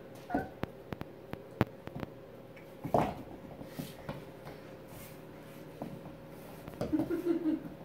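Baby goats' small hooves tapping and clicking on a hard laminate floor, a quick run of sharp taps over the first couple of seconds and a louder knock about three seconds in. A short pitched cry near the end.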